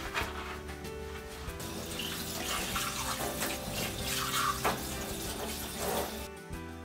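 Water running from a kitchen tap into the sink, under background music; the running water cuts off suddenly near the end.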